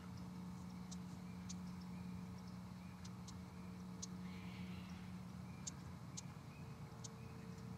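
Faint outdoor ambience: a steady low hum with short, sharp high-pitched ticks scattered irregularly through it, about ten in all.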